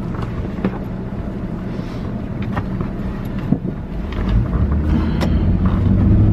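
Inside a moving car: steady engine and road rumble, with a low hum that grows louder about four seconds in.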